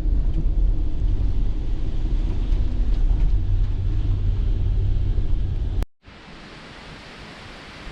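Gusting wind buffeting the microphone, a heavy low rumble. It cuts off abruptly about six seconds in, leaving a quieter, even hiss.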